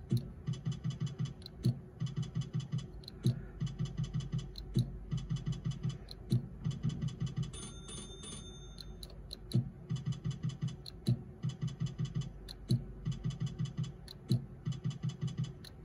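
Video slot machine's electronic reel-spin sounds, spin after spin: a run of rapid ticks as the reels turn, ended by a sharp click, repeating about every 1.6 seconds. About 8 seconds in, a short chiming jingle of a few steady tones marks a small line win.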